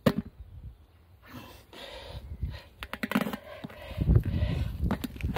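Albainox Glock-style knife stabbed into an old rubber car tyre: a sharp knock right at the start and several more knocks later, with heavy panting breaths from the effort in between.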